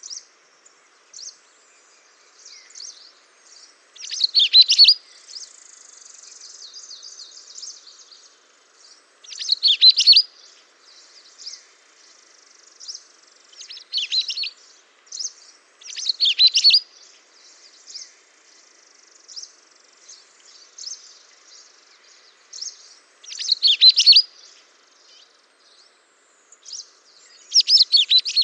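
Small songbirds singing and chirping: about six short, bright bursts of warbling song a few seconds apart, with scattered single high chirps between them.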